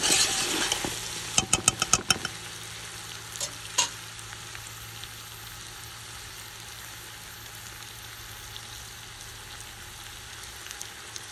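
Seasoned pigtails and smoked turkey wings frying in a metal pot. A spoon scrapes and knocks against the pot for the first two seconds, then a steady sizzle.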